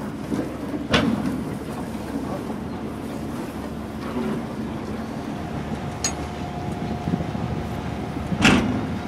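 Steady engine rumble of a cable-laying barge, with a sharp knock about a second in, a lighter click about six seconds in and another loud knock near the end.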